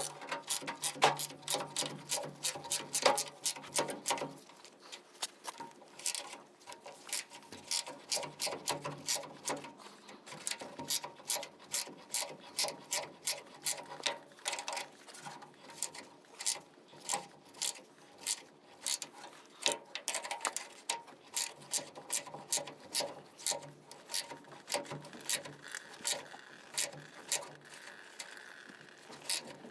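Ratchet wrench clicking in quick runs with short pauses as a nut is worked off a bolt.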